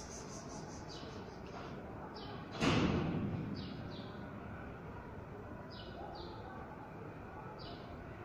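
Small birds chirping in short, repeated calls over steady background noise. About two and a half seconds in, a sudden loud sound stands out and dies away over about a second.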